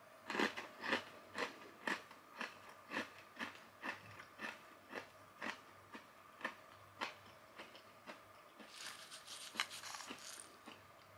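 Close-up chewing of a crunchy Indian snack mix of sev noodles, puffed rice and peanuts, about two crunches a second that grow fainter. Near the end, a metal spoon rustles and scrapes through the dry mix in the bowl.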